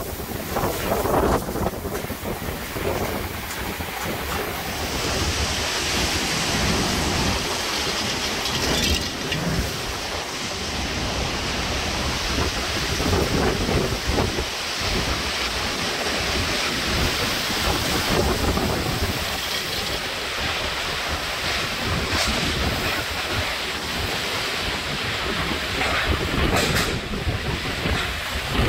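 Hurricane wind and rain on the back side of Hurricane Grace's eyewall, the storm returning from the opposite direction after the calm eye. Continuous gusty wind buffets the microphone, with a steady hiss of rain that grows louder about five seconds in.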